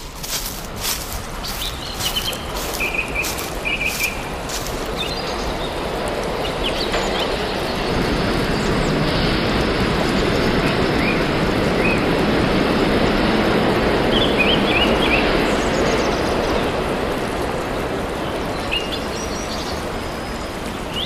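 Outdoor nature ambience: a steady rush of running water with birds chirping now and then. A few sharp clicks sound in the first few seconds, and the rush swells toward the middle and eases off near the end.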